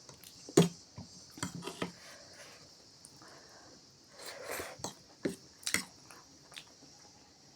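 Eating at close range: sharp clicks and clinks of cutlery against a dish, scattered through, with a short bout of chewing or slurping about four seconds in.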